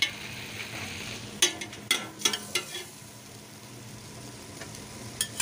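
Chicken pieces sizzling in a stainless steel pot as they are sautéed in their own rendering fat. A metal spatula stirs them, scraping and clinking against the pot a few times about one and a half to two and a half seconds in.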